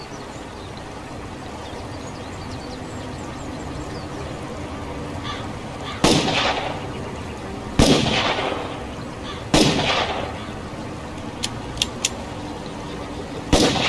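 Three revolver shots about two seconds apart, each with a short ringing tail, over a steady background hiss. A few light clicks follow near the end.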